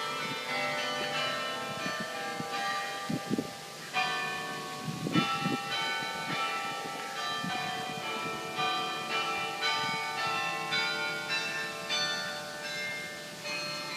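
The carillon bells of Berkeley's Campanile (Sather Tower) playing a melody, struck notes ringing on over one another, with a full chord struck about four seconds in. A few brief low thumps break in, around three and five seconds in.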